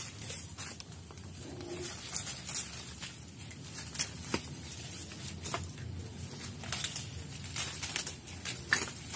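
Leaves and branches of a waru tree rustling, with scattered sharp clicks and snaps as the branches are grabbed and pulled.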